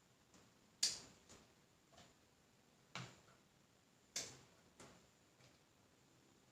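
Scissors snipping plant roots: a series of short, sharp snips at uneven intervals, the loudest about one, three and four seconds in.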